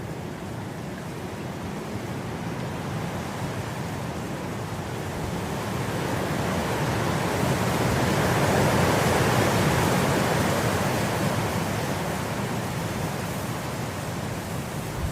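Wind blowing through grass, a steady rushing that swells into a stronger gust about halfway through and then eases off.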